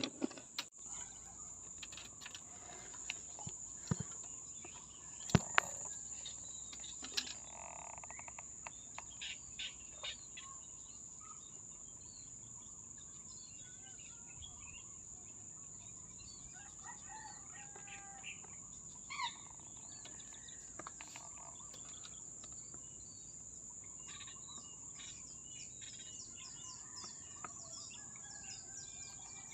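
A steady high-pitched insect drone with scattered bird chirps and calls, and a few sharp clicks in the first several seconds.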